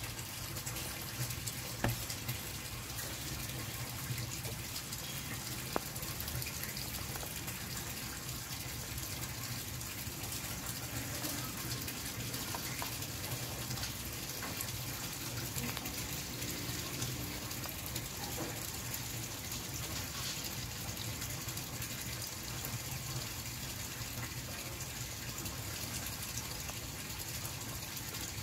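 A steady rushing hiss, like running water, with a low hum underneath and a few faint clicks.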